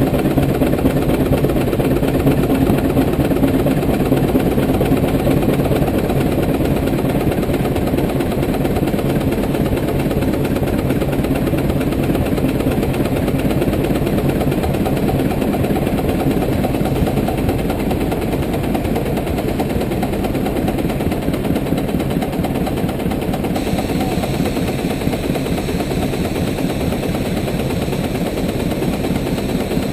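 110 hp Case steam traction engine running hard on a brake, its exhaust beating out of the stack in a rapid, steady stream of loud chuffs.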